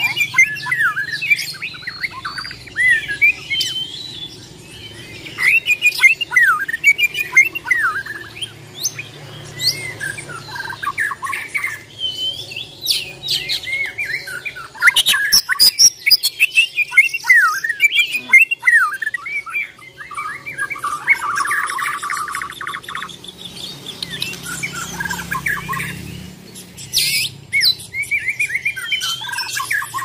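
White-rumped shama (murai batu) singing a fast run of varied loud whistled phrases with short pauses, and a harsh buzzy rattle about two-thirds of the way through.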